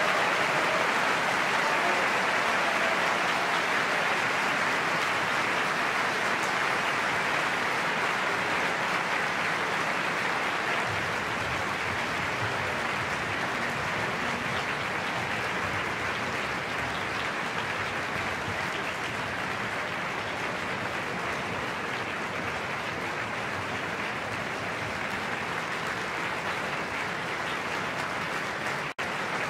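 Opera-house audience applauding steadily, easing off slightly over time, with a momentary dropout near the end.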